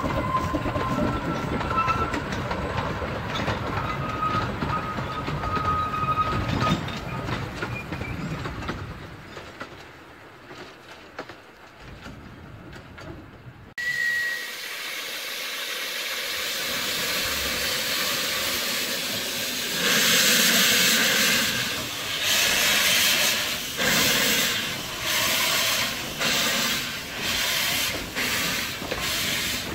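Two-foot-gauge Bagnall-built steam locomotive working. First it runs with a thin high squeal from the wheels, fading away. Then, after a cut, steam hisses and the loco sets off with loud, sharp exhaust beats about one a second.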